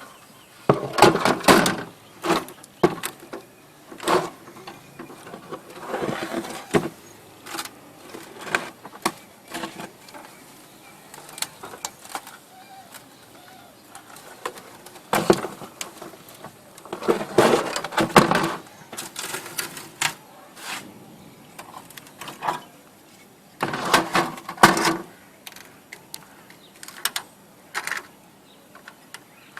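An old desktop computer being handled and worked on by hand: irregular clicks, knocks and short scrapes of its casing and parts, with busier bursts near the start, in the middle and about three-quarters of the way through.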